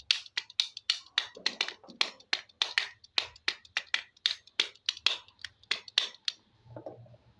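Rapid sharp clicking and tapping, about four to five clicks a second, typical of hard plastic toy animal figures being handled and knocked together; it stops about six seconds in.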